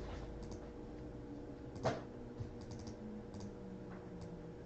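Light typing on a computer keyboard: a few scattered key clicks, one louder about two seconds in, over a faint steady electrical hum.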